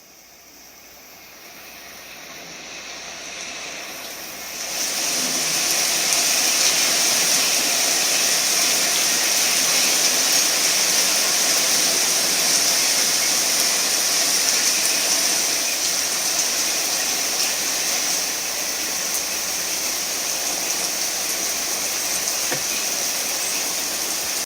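Heavy rain falling steadily, a dense hiss that fades in over the first few seconds and then holds.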